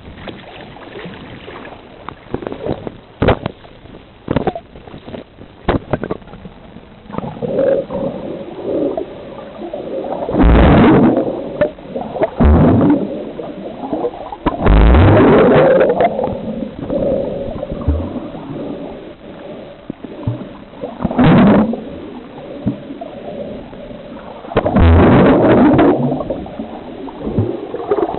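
Seawater gurgling and sloshing around a camera's microphone, with a few sharp clicks at first and then several loud, muffled surges of water.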